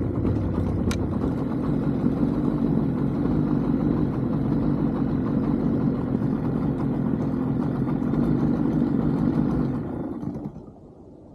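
Jon boat's outboard motor running steadily as the boat moves across the water, then dropping away near the end as it is throttled back.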